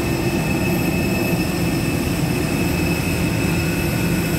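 Jet turbine noise on an airport apron: a steady rumble with several high, steady whining tones over it.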